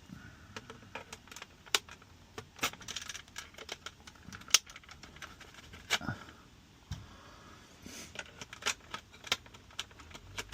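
Irregular sharp plastic clicks, taps and short rattles of a Ford Fiesta instrument cluster's back cover being worked off its push-in clips.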